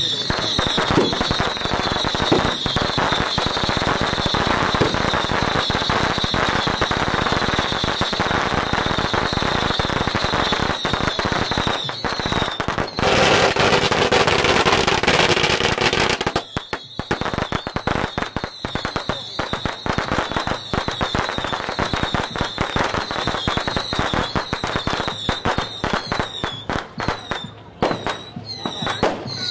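Strings of firecrackers crackling in a dense, continuous rattle. About halfway through it thickens into a louder unbroken burst for a few seconds, then thins into more scattered pops.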